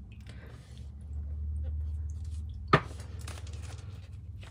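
Quiet handling of tarot cards and a stone on a wooden table: faint rustling, with one sharp click a little past halfway as the stone is set down, over a low steady hum.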